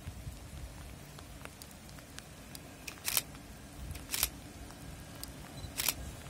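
Faint outdoor background noise with a low hum, broken by three short, sharp taps about three, four and six seconds in, and a few lighter ticks.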